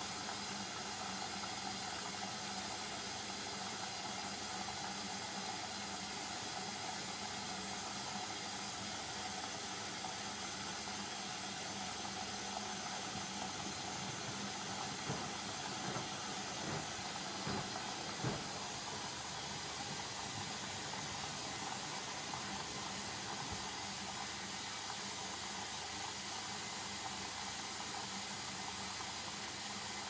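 Hoover Dynamic Delicate 40 washing machine filling with water: a steady hiss of water running in, over a low steady hum. A few light knocks come about halfway through as the drum turns the wet load.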